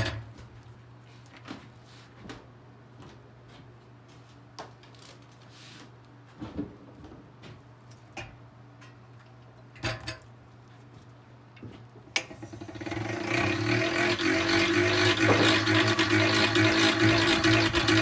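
Honeycomb frames knocking now and then against the stainless steel basket of a honey extractor as they are loaded. About twelve seconds in there is a sharp click, then the extractor's basket spins up: a whir that gets louder and climbs slightly in pitch as it gains speed, then runs steadily.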